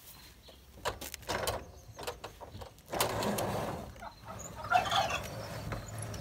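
Farm poultry calling, with a quick run of gobble-like notes about three-quarters of the way through. Before that come several sharp knocks and a loud rushing, rattling noise.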